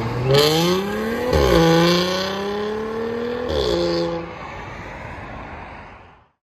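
2015 Audi S5's supercharged 3.0-litre V6, breathing through a dual exhaust with the resonator replaced by an X-pipe, accelerating away. The engine note rises, drops at two gear shifts about one and a half and three and a half seconds in, then fades into the distance and cuts off suddenly near the end.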